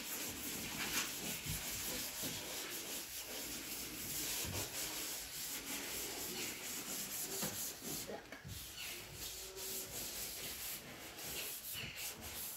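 Hand sanding of a grey-primed car body panel: sandpaper rubbing over the paint in continuous, irregular strokes.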